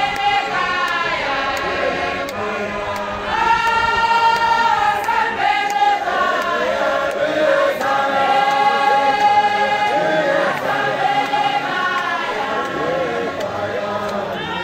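A large congregation singing a hymn together in chorus, in long held notes that rise and fall in phrases of a few seconds.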